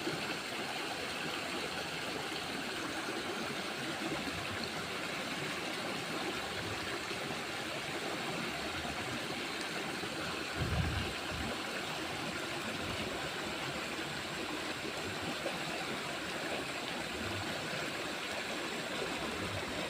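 Steady rush of flowing water, with a brief low thump about halfway through.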